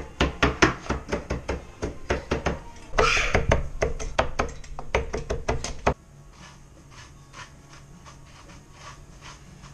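Kitchen knife chopping herbs and cheese on a wooden cutting board: quick, even strokes about five a second, stopping suddenly about six seconds in. Then only faint ticking from hands mixing the herb crumbs in a wooden bowl.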